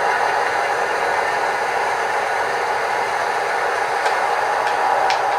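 Sound decoders in two model diesel locomotives playing diesel engine sound through their small speakers: a steady hum as the pair runs together as a consist. A few faint clicks come in the last second and a half.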